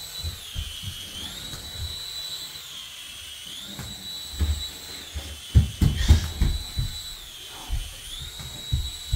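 A small hovering toy flying robot with a tiny electric rotor motor whines at a high pitch, dipping in pitch and coming back up several times. Low thuds sound underneath, the loudest about five and a half to six seconds in.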